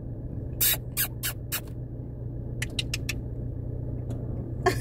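A car moving slowly, with a steady low engine and road hum heard inside the cabin. Two runs of sharp clicks cut across it: about four, a third of a second apart, in the first two seconds, then about five quicker ones around three seconds in.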